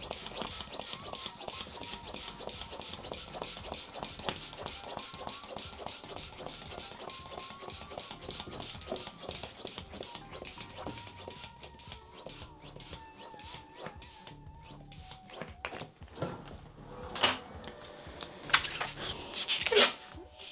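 A latex modelling balloon being handled and twisted, its rubber rubbing and squeaking fast and continuously. It goes quieter partway through, then gives a few sharp, louder squeaks near the end.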